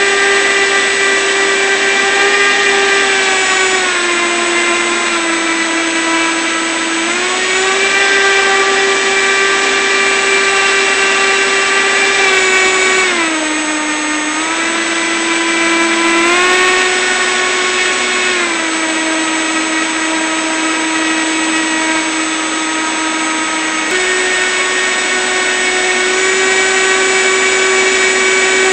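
RC airboat's motor and air propeller running with a steady whine. Its pitch drops three times, about four, thirteen and eighteen seconds in, and rises again each time as the throttle is eased off and opened back up.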